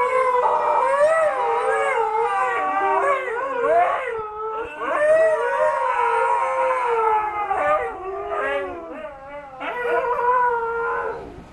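Three Siberian huskies howling together, their wavering howls overlapping and gliding up and down, with a short gap about four seconds in. They are howling back at a passing van's siren.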